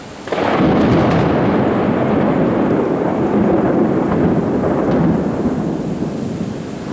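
A loud, continuous rumbling noise with no clear pitch, setting in abruptly just after the start and holding, easing slightly after about five seconds.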